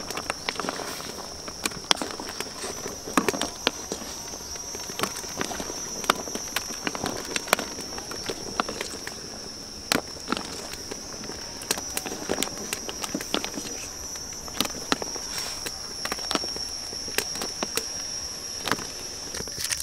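A steady high-pitched insect drone, with scattered sharp clicks and knocks throughout.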